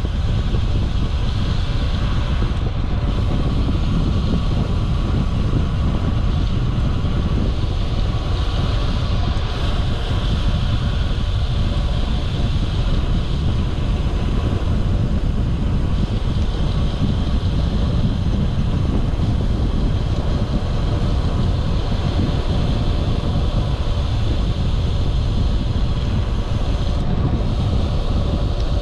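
Steady wind rushing over the microphone of a camera carried on a moving bicycle, heaviest in the low rumble.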